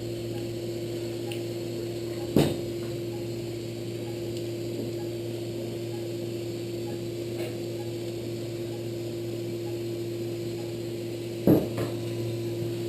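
Steady hum of operating-room equipment with a constant tone, broken by two sharp knocks, one about two seconds in and one near the end.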